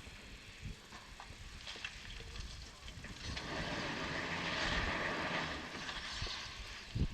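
Erie Type A steam shovel working: a low mechanical rumble with scattered light knocks, and a long hiss of steam from about three to six seconds in.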